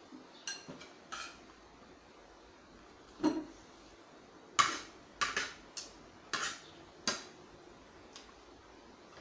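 Spoon and fork clinking and scraping against a china plate while eating, about ten sharp clinks at uneven intervals, the loudest near the middle.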